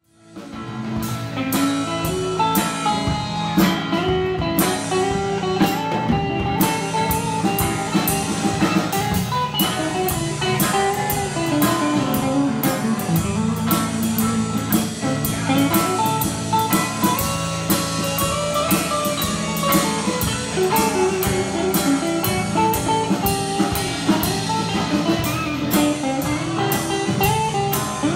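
Live blues-rock band playing: two electric guitars over a drum kit, with the guitars carrying a melodic line and the drums keeping a steady beat. The music fades in at the very start.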